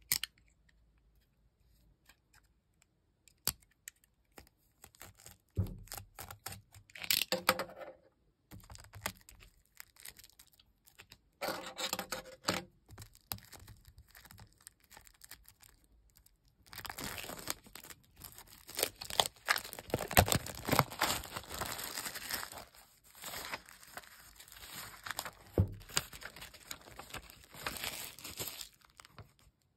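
Thin clear plastic shrink-wrap being torn open and peeled off a stack of cork trivets by hand. Scattered rips and crackles come first, then continuous crinkling through the second half.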